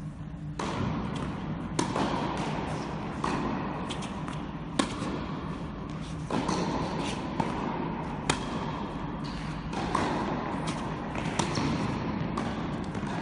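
Tennis rally on an indoor hard court: sharp pops of the ball struck by racquets and bouncing, about one every second and a half, over a steady background rush.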